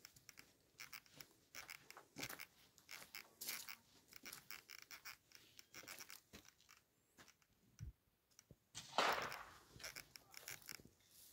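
Faint, irregular crunching footsteps on gravel and dirt, with rustling from the phone being handled, and one longer, louder scuff about nine seconds in.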